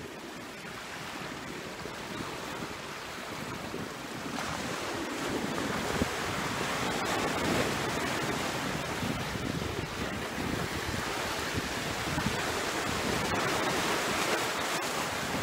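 Small sea waves washing and splashing against a concrete seawall, with wind buffeting the microphone. The wash grows louder about four seconds in.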